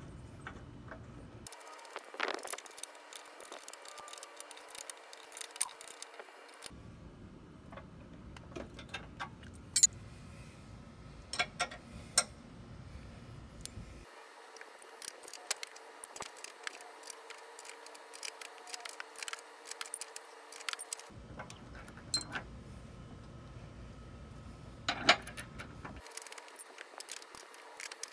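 Two steel 15 mm combination wrenches clinking against each other and against the bolt and nut of a mower-deck anti-scalp wheel as it is tightened, giving irregular sharp metallic clicks and clinks.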